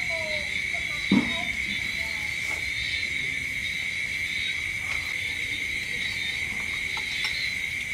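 Steady high-pitched chorus of night insects, with light clinks of spoons against plates and one duller knock about a second in.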